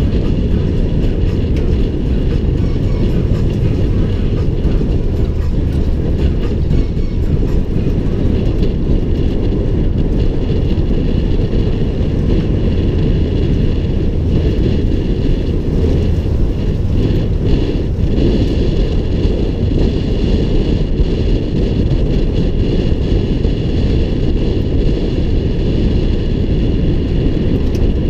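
Toyota Tundra TRD Pro pickup driving over a gravel desert wash, heard through a camera mounted outside on its hood: a loud, steady low rumble of the truck and its tyres on the dirt, mixed with wind on the microphone.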